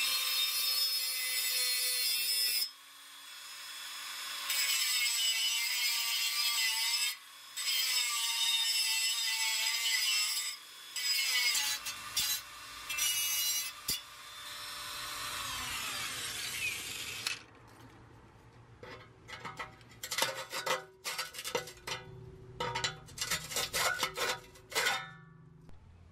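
Rotary cutoff tool's small abrasive wheel grinding through a stub of steel exhaust pipe, in several runs with short pauses, its whine wavering as the wheel bites. It stops after about 17 s, and a run of short metallic knocks and clicks follows.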